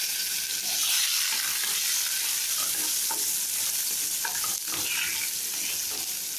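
Chopped tomatoes sizzling in hot oil in a non-stick kadai, a steady frying hiss. A wooden spatula stirring them scrapes and taps against the pan a few times in the middle of the stretch.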